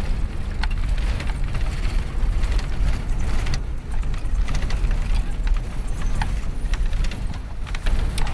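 Moving vehicle driving over a rough, cracked road and dirt track: a steady low rumble with frequent rattles and knocks from the vehicle's body and window frame.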